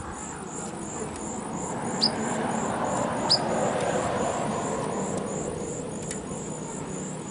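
A motor vehicle passing by: a broad engine and road noise that swells to a peak in the middle and fades away. Two short high bird chirps come about two and three seconds in.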